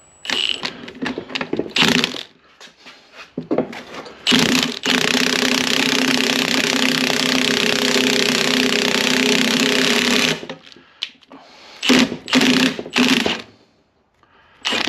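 Milwaukee impact wrench hammering on the screw of a ball joint press, pressing a new Teraflex steering ball joint into its arm. It starts with a few short trigger bursts, then runs steadily for about six seconds, then gives three more short bursts near the end as the joint seats flush.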